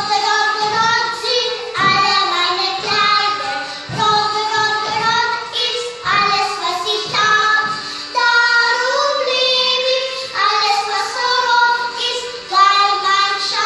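A small group of young girls singing a German song together over instrumental accompaniment with a steady beat.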